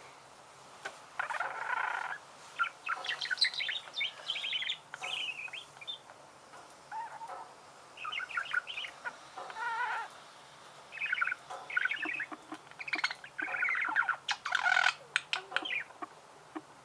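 Budgerigars warbling and chirping in short, irregular bursts of rapid chatter, busiest and loudest near the end.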